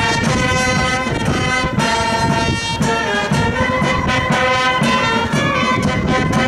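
Brass band playing a tune of held horn notes over a pulsing low end.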